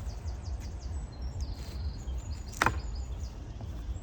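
A single sharp metal knock about two and a half seconds in, as a magnet-fished scrap metal trolley frame is handled, over a steady low outdoor rumble, with faint birdsong early on.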